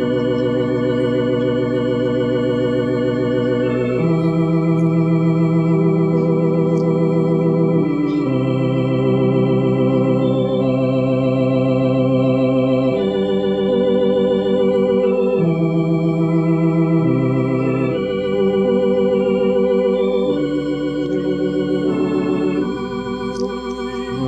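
Organ playing a slow hymn stanza in held chords that change every few seconds, with a wavering vibrato.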